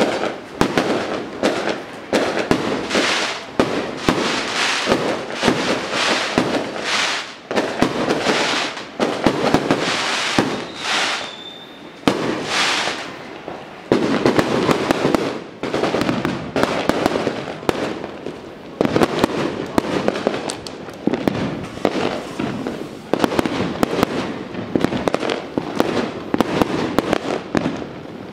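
Firecrackers and fireworks going off in a dense, continuous crackle of rapid bangs that swells and eases, with a short high whistle about eleven seconds in.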